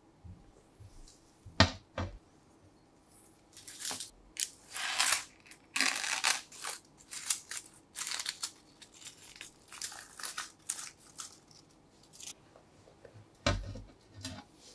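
Parchment paper crinkling and rustling in a run of quick rustles from about four seconds in to about twelve, as the liner is lifted out of a freshly blind-baked tart shell. There is a sharp knock about a second and a half in and a duller knock near the end.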